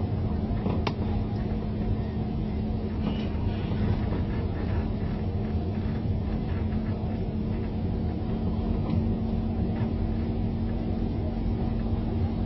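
Steady low rumble of a motor vehicle with a constant low hum, and a single sharp click about a second in.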